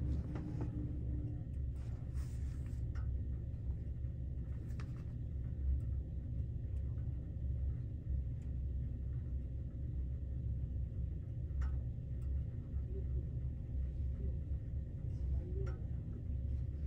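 Steady low hum and rumble inside a 381-series electric express train car standing at a station, with a faint steady tone over it and a few soft clicks.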